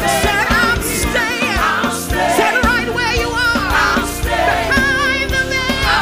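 Gospel praise team singing with a band: several voices with wide vibrato in harmony over sustained keyboard-like chords and regular drum hits.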